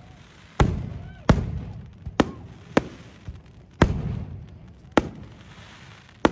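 Aerial fireworks shells bursting overhead: about seven sharp bangs at irregular intervals over six seconds, several followed by a rolling low rumble.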